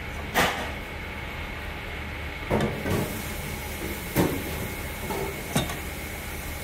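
A steady hum and hiss of kitchen background noise, broken by about five short sharp knocks and clatters. They come from handling at a large stainless-steel mixing bowl as sliced bell peppers are piled onto the noodles.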